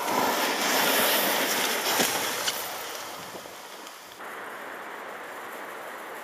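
A loaded dog sled scraping and hissing over snow as the dog team pulls it off, with a couple of knocks about two seconds in; the rushing noise drops to a quieter, steady hiss after about four seconds.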